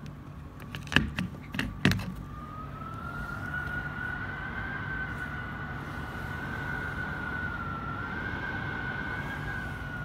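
Panasonic mini split air conditioner indoor unit: a few sharp clicks about a second in, then a thin whine that rises in pitch over a second or so and holds steady with a slight waver, over a low hum.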